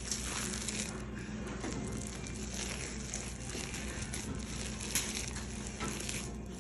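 A hand kneading coarse tamale masa with pork lard and vegetable shortening in a large pot: a steady run of soft, crumbly squeezing and crackling noises.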